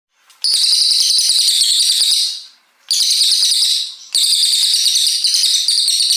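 Brown cililin songbird singing long, fast, high-pitched phrases of rapid chattering notes, three bursts with short breaks about two and four seconds in. This is the long, sustained 'tembakan' song used as tutor material for murai batu.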